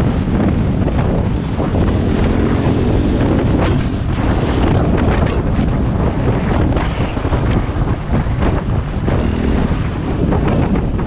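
Heavy wind buffeting the microphone while riding a KTM 500 EXC dirt bike, its single-cylinder engine running underneath.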